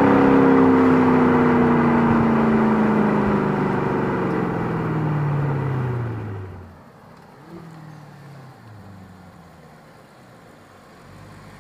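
The Bentley Continental GT V8 S's twin-turbo V8, heard close at its sports exhaust tailpipe, runs loud with the revs falling steadily as the car slows off the throttle. After about six and a half seconds the sound drops abruptly to the much quieter, faint running of the car heard from a distance.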